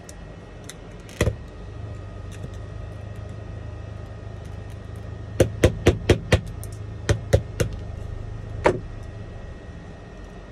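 Small hammer tapping a metal pick to chip laser-loosened back glass off an iPhone 11: sharp metal-on-glass taps, one about a second in, then a quick run of five around the middle and four more spaced out after it.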